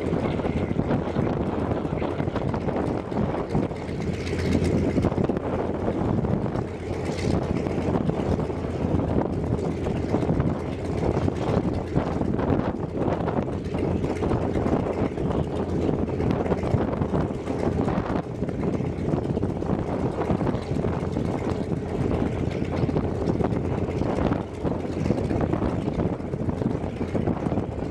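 Antonov An-2's nine-cylinder Shvetsov ASh-62 radial engine idling steadily, its propeller turning.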